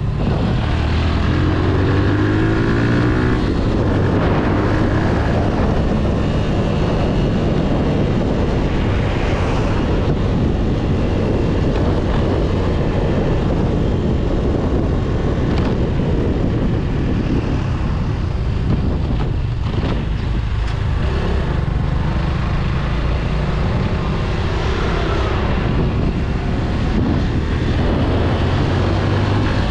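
Motorcycle engine running under way, its pitch rising as it accelerates about a second in and again past the middle, over a constant rush of wind on a helmet-mounted microphone.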